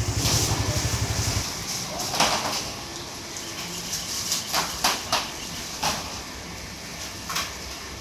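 A motorcycle engine idling with a rapid low pulsing that stops about a second and a half in, followed by steady background noise with a few light clinks and knocks.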